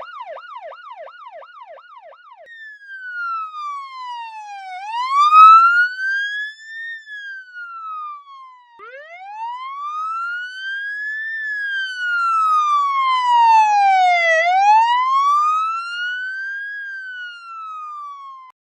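Electronic police siren changing from a fast yelp, about three up-and-down sweeps a second, to a slow wail that rises and falls over several seconds. About nine seconds in the wail restarts from a low pitch and climbs again, and near the end it cuts off suddenly.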